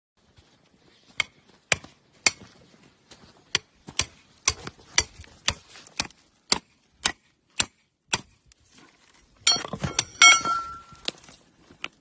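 Hammer striking rock to break it open and expose a fossil: steady taps about two a second, then a quick flurry of harder blows about ten seconds in, the loudest leaving a bright ringing clink.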